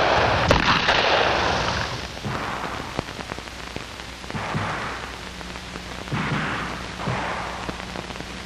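Revolver shots on a firing range, each a sharp crack followed by a long noisy decay, on an old film soundtrack with hiss and crackle. The loudest is right at the start, with weaker shots about four and a half and six seconds in.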